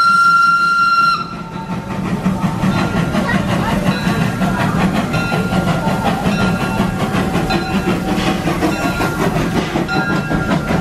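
Small narrow-gauge steam locomotive's whistle blowing one steady note that cuts off about a second in, then the locomotive and its passenger cars rumbling and clattering as they pull slowly into the station.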